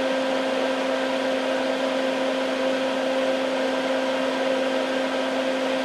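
Steady hum and air rush of a Hakko soldering smoke absorber's fan running on the bench, even and unchanging throughout.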